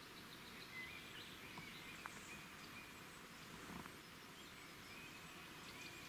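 Faint outdoor background hiss with a few faint high-pitched chirps and soft ticks.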